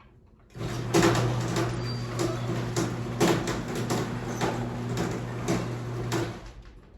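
Chain-drive garage door opener running: the motor hums steadily while the chain drives the door, with repeated knocks and rattles from the moving door. It starts about half a second in and stops a little after six seconds.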